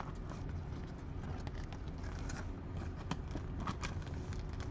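Trading cards being handled and slid through by hand from a freshly opened pack: faint scattered clicks and rustles over a steady low hum.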